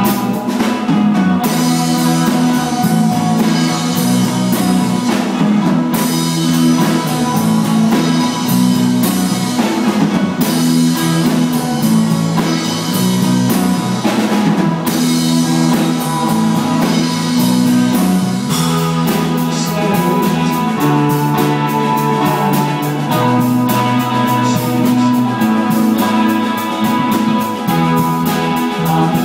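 Live shoegaze rock band playing instrumentally: amplified electric guitars holding chords over electric bass and a drum kit, its cymbals forming a steady wash, with the chords changing every few seconds.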